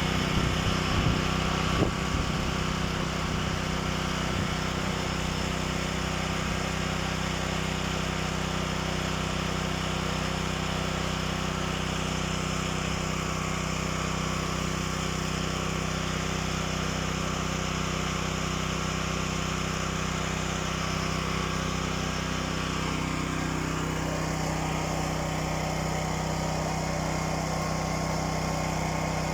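A small engine running steadily at an even speed, with a few light knocks about a second in.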